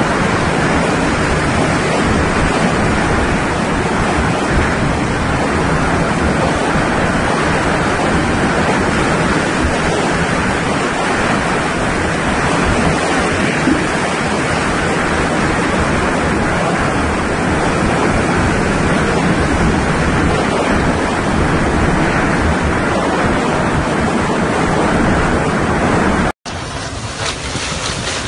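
Hurricane wind blowing as a loud, steady rush with heavy buffeting on the microphone. Near the end it cuts out suddenly and comes back quieter.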